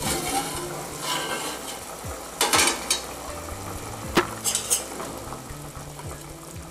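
Aluminium pot lid lifted off and set down with metal clatter, then a steel spoon scraping and knocking against the inside of the aluminium pot as chicken leg pieces are stirred. Under it, the chicken simmers in a little water, which is partly boiled before frying.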